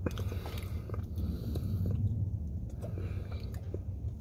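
Close chewing and mouth sounds of a person eating fast food, with many small clicks and smacks, over a steady low hum.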